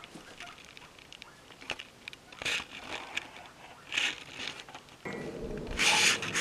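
Handling rustle and scuffs from the camera being picked up and moved, with light crackles and three short bursts of rustling noise, the loudest near the end.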